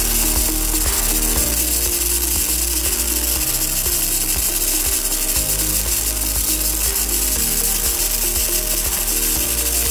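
MIG welding arc crackling steadily as an automatic welding machine runs a bead joining a steel inner prop pipe to its base plate.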